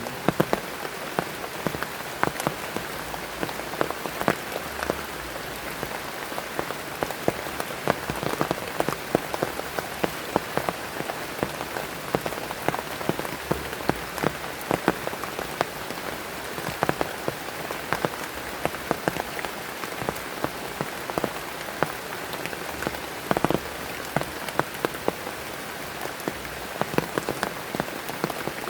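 Heavy rain falling steadily, with many sharp individual drop hits on a nearby surface.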